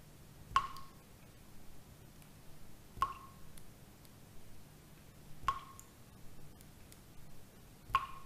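Slow, evenly spaced water drips, one about every two and a half seconds, each a sharp plink with a short ringing tone, over a faint steady low hum.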